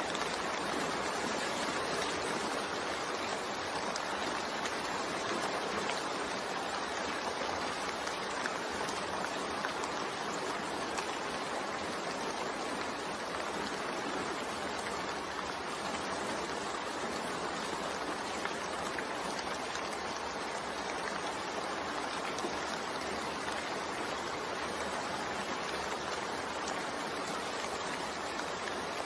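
Steady, soft rain falling, an even hiss with no separate drops or changes.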